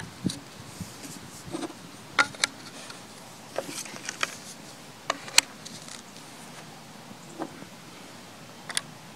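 PVC pipes being pushed into PVC fittings and handled: a series of scattered short plastic clicks and knocks, about nine in all, the sharpest a little over five seconds in.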